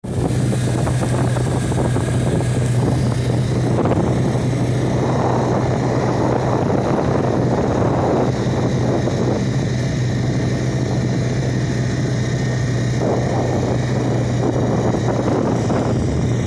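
Wind buffeting the microphone in gusts that swell and ease, over a steady low hum.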